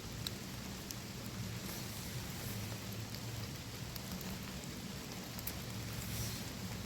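Steady rain falling, with a few scattered sharp ticks of single drops.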